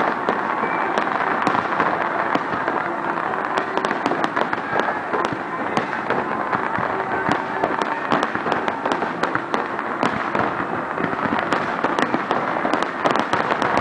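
Fireworks going off: a dense, unbroken crackle of many sharp pops and bangs over a steady rush of noise.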